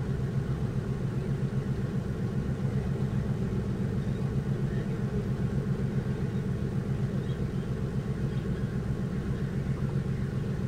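Diesel engine of a moored purse-seine fishing boat idling, a steady low rumble with an even throb.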